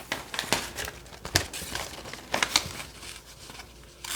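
Catalog paper rustling and crinkling in short bursts as a dull factory-edged kitchen knife is drawn through it, snagging and tearing rather than slicing cleanly.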